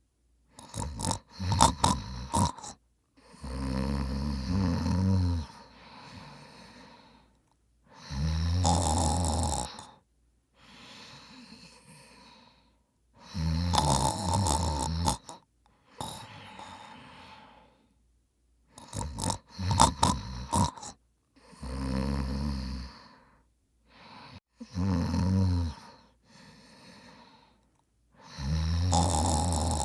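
A man snoring loudly: long, rumbling snores of one to two seconds come roughly every five seconds, with quieter breaths between them. Twice, about two seconds in and again around twenty seconds, the snoring breaks into a run of sharp, louder snorting catches.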